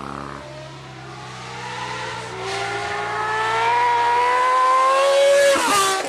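Honda inline six-cylinder motorcycle engine accelerating toward the listener, its pitch climbing steadily as it gets louder. About five and a half seconds in, the pitch drops sharply and the sound falls away as the bike passes by.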